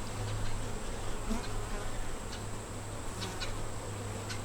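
Honey bees buzzing steadily around an open hive, with a few light ticks scattered through.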